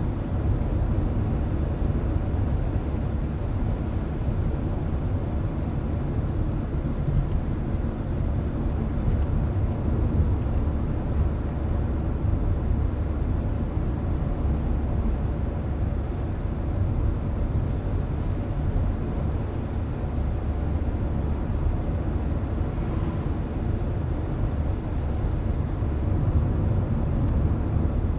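Car driving at a steady speed, heard from inside the cabin: an even low rumble of tyres and engine on the road.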